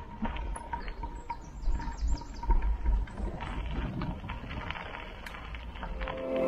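Mountain bike rolling over a dirt forest trail: tyre noise and rattling with many small clicks and knocks, over a low wind rumble on the microphone. A bird chirps a few times about a second in.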